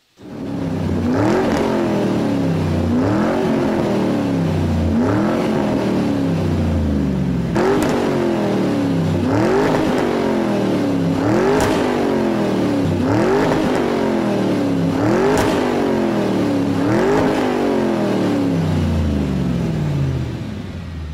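A car engine revved over and over, each rev climbing quickly and sinking back slowly, about once every two seconds, with a few sharp clicks; it fades near the end.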